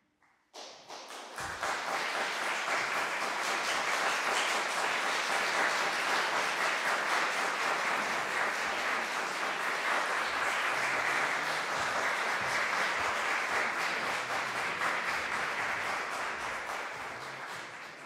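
Audience applauding: the clapping starts about half a second in, builds to full within a couple of seconds, holds steady, then thins out near the end.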